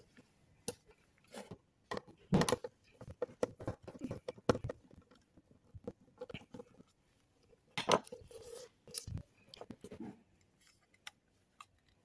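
Hand screwdriver turning small screws out of the plastic housing of a Secureye glass door lock. The screws and housing give irregular clicks, scrapes and light knocks, a few of them louder.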